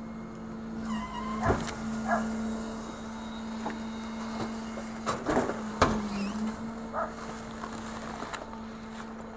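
Garbage compactor truck running with a steady engine hum that drops slightly in pitch a little after six seconds. Sharp knocks come about one and a half seconds in, with a louder cluster around five to six seconds in.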